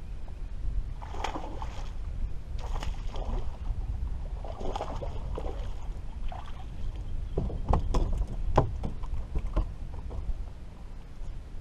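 Water slapping and sloshing against a Skeeter bass boat's hull over a steady low rumble, with splashy bursts every second or two. About two-thirds of the way through comes a cluster of sharp knocks and splashes as a hooked bass is pulled thrashing to the boat.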